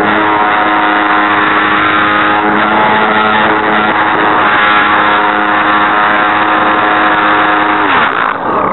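Electric motor, gearbox and propeller of a radio-controlled Super Cub LP model airplane running at steady throttle, heard from the camera on board with air rushing past; a steady whine with several tones, flying with a broken gearbox. Near the end the pitch drops and the whine falls away.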